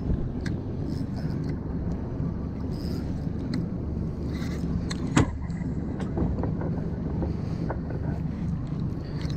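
Outboard motor idling with a steady low hum. A single sharp knock about five seconds in.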